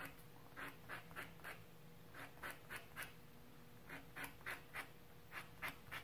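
Thin wooden dowel rubbed against a sanding block to taper its end to a blunt point: faint, short scratchy strokes, about three a second, with a brief pause near the middle.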